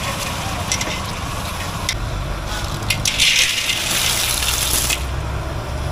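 Clams in their shells poured from a metal colander into a hot wok of chili paste, clattering and sizzling for about two seconds just past the middle. Before that, a few sharp clinks of metal spatulas against the wok over a steady sizzle.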